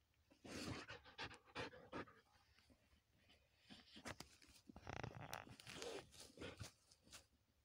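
Belgian Malinois x German Shepherd panting hard with her snout down in a rabbit hole, in two bouts of quick breaths with a short pause between them.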